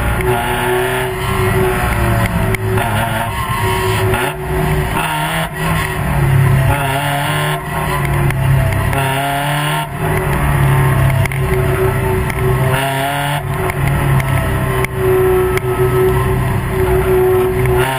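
Spec Miata race cars' four-cylinder engines running at racing revs, taken close behind by pursuing cars. Around the middle the engine note falls and climbs several times with brief breaks, as through braking and gear changes, then holds steady toward the end.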